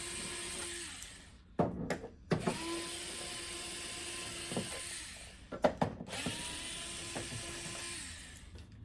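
Cordless electric screwdriver backing out the screws of a TV's back cover: the motor whirs steadily in three runs of two to three seconds each, with clicks and knocks in between as the bit is set on the next screw.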